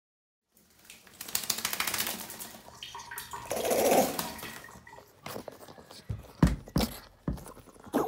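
Yorkshire terrier shaking its wet coat: a rapid flapping rattle of ears and fur, with water spraying off, coming in two bouts and loudest about four seconds in. A few short sharp thumps follow near the end.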